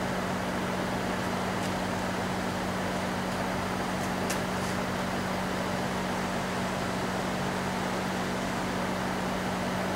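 Steady machine hum with a constant airy hiss, unchanging throughout; a few faint light clicks about four seconds in.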